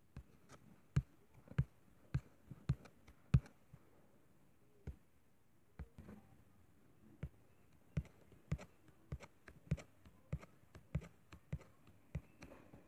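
Light, irregular taps of a fingertip on a tablet's touchscreen, roughly one or two a second, with a short lull about a third of the way in.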